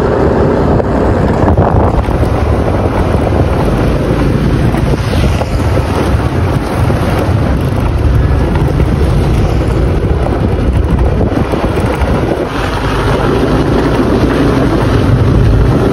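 Heavy wind buffeting the microphone from a moving motorcycle, with small motorbike engines running underneath in a steady drone.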